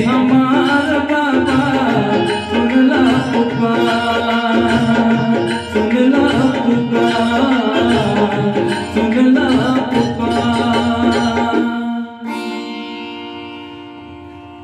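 Roland XPS-10 keyboard playing a bhajan melody over a tabla-style rhythm loop. About twelve seconds in, the rhythm stops and a final held chord rings and fades away.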